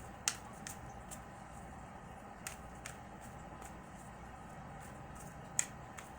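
Tarot cards being handled and laid out: a scattering of light, sharp clicks and snaps, the two loudest about a third of a second in and near the end, over a faint steady room hum.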